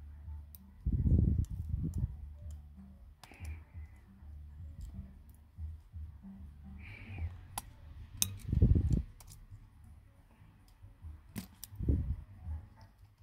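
Light metallic clicks and taps of tweezers picking at small screws and parts inside an opened Sony Xperia 5 smartphone. Three louder low bumps of handling come about a second in, around nine seconds in and near the end.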